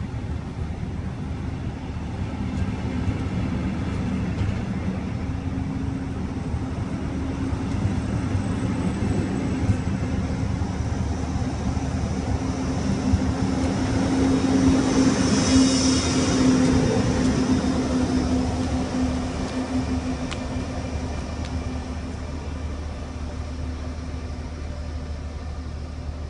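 Departing regional train: red double-deck coaches roll past with a steady noise of wheels on rails. Then the class 182 (Siemens Taurus) electric locomotive pushing at the rear goes by about 15 seconds in, where a steady electric hum and a high hiss are loudest, before fading as it pulls away.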